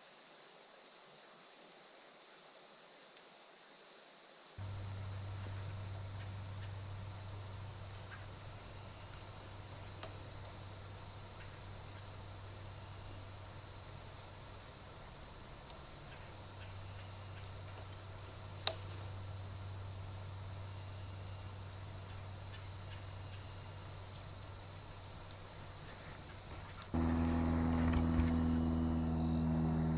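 Steady high-pitched chorus of insects in the woods, with a faint low hum coming in after a few seconds and a single sharp tick partway through. Near the end the insects fall back and a louder low hum with several steady tones takes over.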